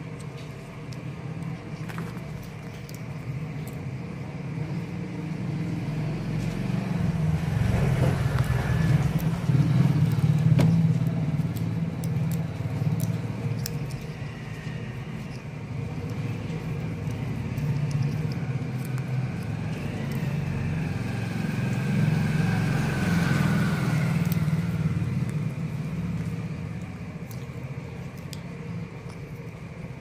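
Low engine rumble of motor vehicles, swelling louder about eight seconds in and again about twenty-two seconds in before fading.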